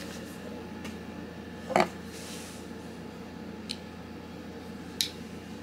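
Small metal parts being handled at a wooden table: a titanium knife backspacer and a folding pocket knife give a few short sharp clicks and taps, the loudest about two seconds in and smaller ones near four and five seconds, over a steady low hum.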